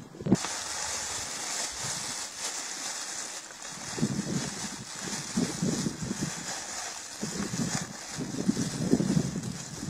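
Walnuts in the shell clattering on a wooden board while a plastic bag of them rustles, in two spells, about four seconds in and again near the end, over a steady outdoor hiss.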